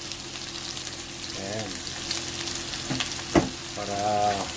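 Pork belly, garlic and onion sizzling in oil in a nonstick wok, stirred with a plastic spatula, over a low steady hum. A sharp knock of the spatula on the pan a little over three seconds in is the loudest sound.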